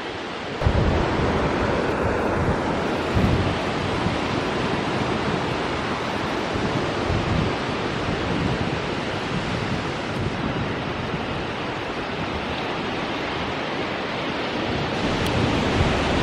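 Ocean surf washing onto a sandy beach, a steady rush of breaking waves, with wind buffeting the microphone in low rumbling gusts. The level steps up about half a second in.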